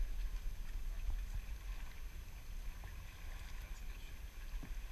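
Steady low wind rumble on the microphone, with faint water sounds and a few small knocks around a kayak.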